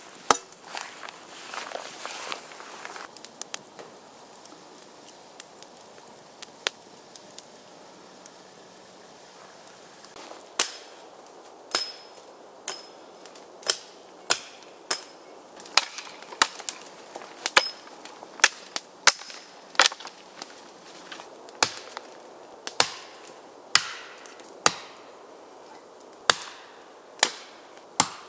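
Hatchet chopping sticks on a wooden stump, sharp separate strikes about once a second from around ten seconds in. Before that, a metal kettle lid clanks and rattles into place.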